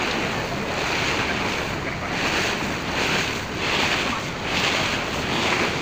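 Water rushing and splashing along the hull of a moving ferry boat, with wind buffeting the microphone; the rush swells and fades in surges about once a second.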